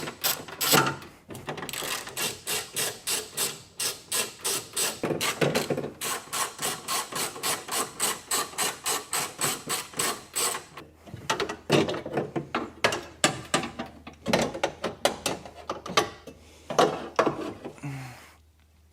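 Hand ratchet wrench clicking in a rapid even run as 12mm nuts are backed off a bracket inside a car door, then in shorter, looser bursts of clicks about halfway through.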